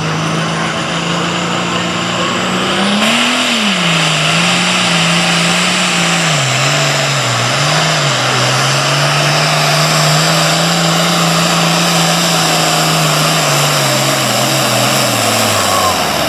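Super farm pulling tractor's diesel engine running hard under load, loud throughout. Its pitch climbs about three seconds in, surges and dips through the middle, and falls away near the end.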